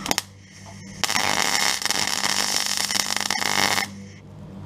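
MIG welder arc plug-welding a steel sill panel: a brief sputter just as the arc is struck, where the wire bounces off the non-conductive zinc-rich primer, then about three seconds of continuous crackling from about a second in as the arc, with the welder turned up high, burns through the paint into the metal. The crackling stops sharply near the end.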